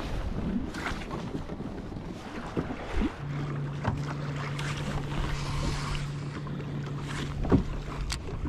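Lake water lapping against a kayak's hull with wind buffeting the microphone, broken by a few sharp knocks. A low steady hum joins about three seconds in.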